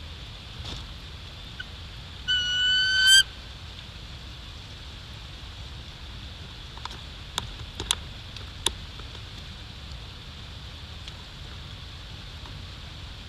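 A bald eagle at the nest gives one loud, high whistled call lasting just under a second and rising slightly at the end. A few faint sharp clicks follow, nest sticks shifting under the birds.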